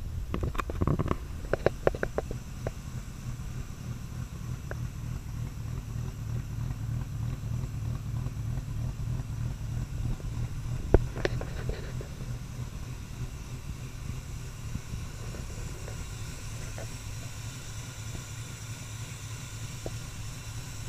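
Jaguar XK twin-cam straight-six idling steadily after a cold start. A few knocks and clicks sound in the first couple of seconds, and one sharp click about eleven seconds in.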